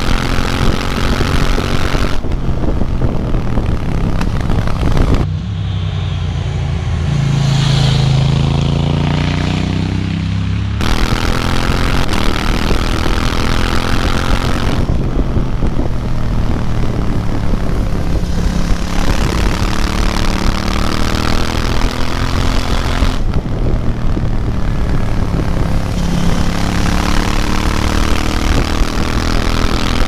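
KTM 790 Duke's A2-restricted parallel-twin engine pulling hard along a mountain road, its revs rising and falling through the gears and bends. Wind rush on the microphone comes and goes.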